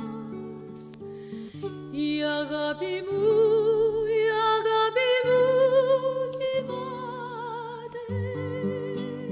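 Woman singing a slow Greek popular song with wide vibrato over a sustained instrumental accompaniment; the voice swells louder about three seconds in.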